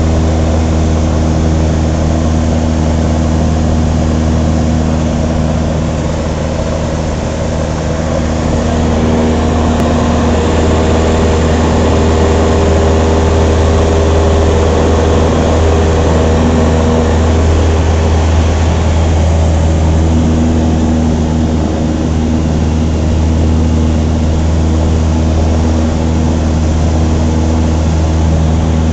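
Cessna 150's Continental O-200 four-cylinder engine and propeller running steadily, heard from inside the cabin as a loud, deep drone. Its tone shifts slightly around the middle, then settles back.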